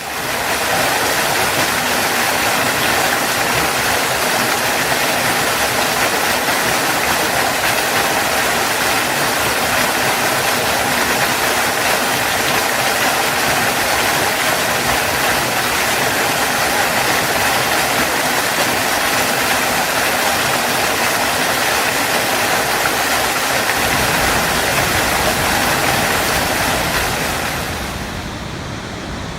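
Waterfall: a steady, even rush of falling water, with a deeper rumble coming in about three-quarters of the way through and the sound easing slightly near the end.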